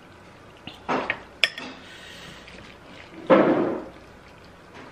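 Eating noodles: a metal fork clicks sharply against a glass bowl, with wet mouth sounds of slurping and chewing, the loudest a short slurp over half a second long about three seconds in.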